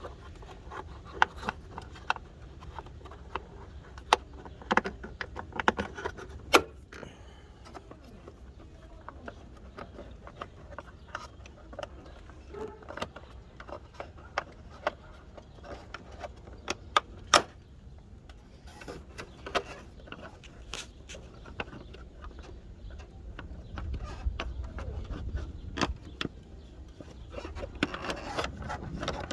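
Scattered clicks, knocks and light metal rattles of hand tools and plastic intake parts being handled and fitted in a car's engine bay, with a dozen or so sharper knocks standing out.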